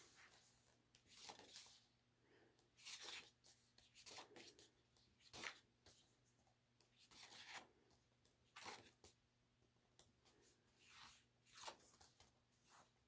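Faint swishes of paper as the pages of a softcover photo book are turned and smoothed flat by hand, one every second or so.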